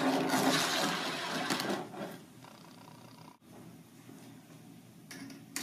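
Two steel balls rolling along a pair of side-by-side grooved tracks, a steady rolling rumble that dies away about two seconds in as they reach the end. A couple of light clicks near the end.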